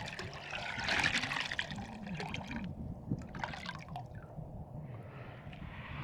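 Water splashing and pouring in two spells: a longer one of about two and a half seconds, then a short one about three seconds in.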